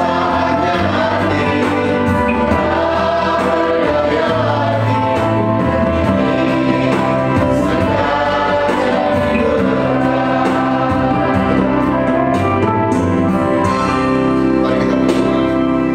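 Group singing of an Indonesian Christian praise song, with a man's voice leading at the microphone over a steady musical backing.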